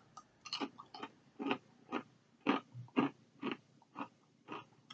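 Chewing a crisp Cheez-It Grooves cheddar ranch wafer cracker: a run of short, faint crunches, about two a second.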